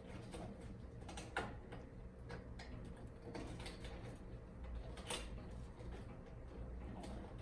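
Scattered light clicks and taps of parts and tools being handled while a ceiling cassette air conditioner is taken apart, with two sharper knocks about a second and a half in and about five seconds in, over a low steady hum.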